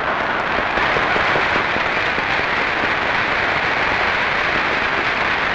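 A large hall audience applauding and laughing in response to a joke. The clapping swells in just before and holds steady and loud throughout.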